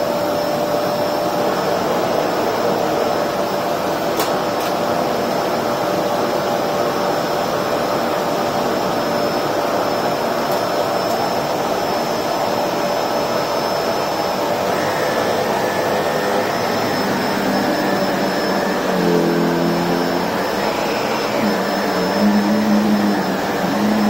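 Electrolux Precision bagless upright vacuum cleaner running loudly and steadily as it is pushed back and forth over a thick shag rug, its motor holding a steady whine. A few brief lower-pitched tones come in near the end.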